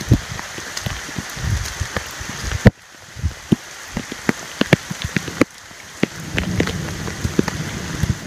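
Heavy rain falling, with many sharp taps of drops striking close to the microphone. The sound drops suddenly twice.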